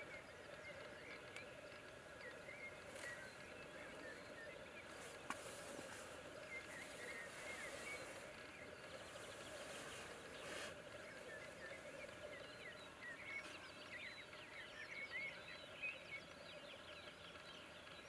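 Male black grouse at the lek, faint: a steady bubbling coo with a couple of hissing bursts near the middle, and many short high chirps over it.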